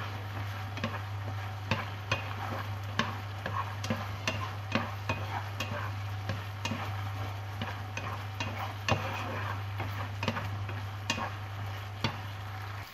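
Chicken thigh pieces sizzling and bubbling in a reducing fish sauce and sugar glaze in a nonstick frying pan, as the chicken browns. Wooden chopsticks stirring the pieces make irregular clicks and knocks against the pan. A steady low hum runs underneath.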